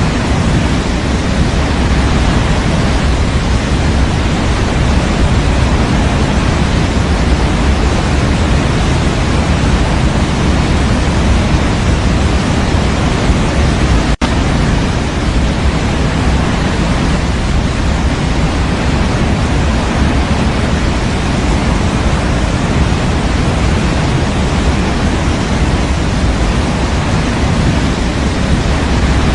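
Steady electronic white noise, fuller in the low end than the high, with a momentary dropout about halfway through.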